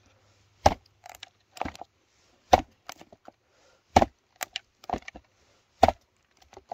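A heavy D2-steel machete, the Odenwolf W, chopping into wood: about six sharp strikes roughly a second apart, some harder than others, with small cracks of splintering wood between them.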